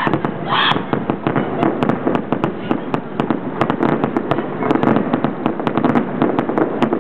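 Fireworks show: a dense, unbroken barrage of bangs and crackles, many reports a second.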